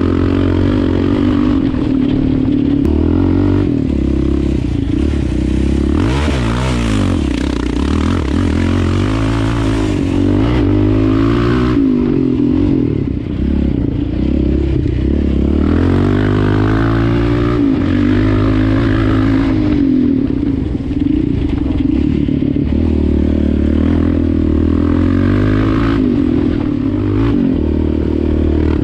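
Yamaha Raptor 700 quad's single-cylinder four-stroke engine running under load while ridden, its pitch rising and falling again and again as the throttle is opened and closed, over a steady rush of noise.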